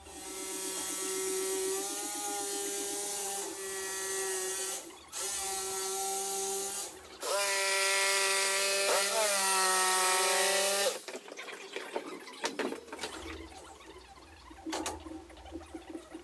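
Electric jigsaw cutting through a sheet of 9 mm MDF: a steady motor whine with the blade's fast chatter, in runs broken by short pauses, the pitch dipping briefly under load near the end of the last run. The saw stops about eleven seconds in, leaving a few light knocks and clicks.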